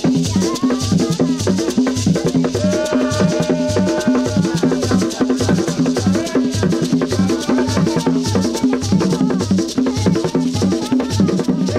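Ganda drum ensemble playing the baakisimba dance rhythm: a steady, rolling pattern of deep drumbeats, with a dense patter of sharper, higher drum strokes over it.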